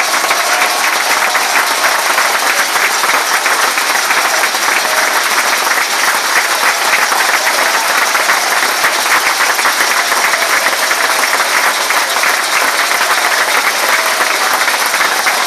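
Football crowd in the stand applauding steadily, many hands clapping at once.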